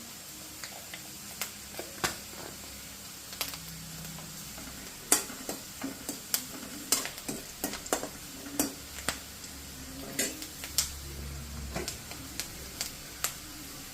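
A spoon stirring and clinking against a pan of onions, garlic, ginger and curry leaves frying in coconut oil, with irregular sharp taps over a steady sizzle.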